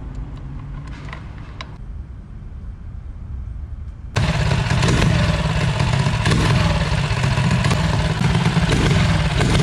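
A few small metallic clicks as the main jet is fitted into the Mikuni VM22 carburettor. About four seconds in, the Predator 212 single-cylinder engine on the drift trike comes in loud under throttle; with the 140 main jet it still bogs audibly, though less than with the smaller jet.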